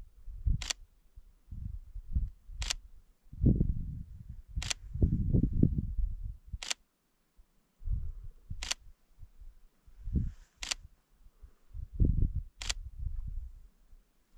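A sharp click repeating evenly about every two seconds, over irregular low thumps and rumble.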